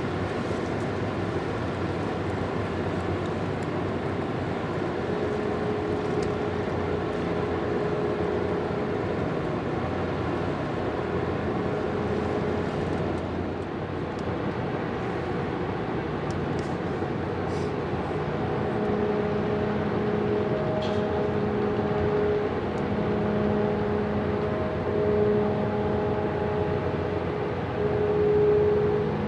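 Ship engines droning steadily, with a hum that joins a few seconds in and grows stronger, with added tones, in the second half.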